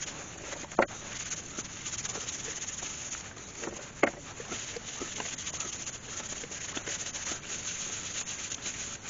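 Cloth rubbing finishing oil into the hollows of a turned oak salt and pepper holder: a steady rubbing hiss, with a couple of short knocks, the sharpest about four seconds in.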